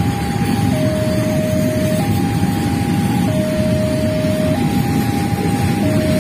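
Level-crossing warning alarm sounding a continuous two-tone signal, switching between a higher and a lower tone about every 1.3 seconds, which warns that a train is on the crossing. Under it, the steady rumble of a container freight train's wagons rolling slowly over the rails.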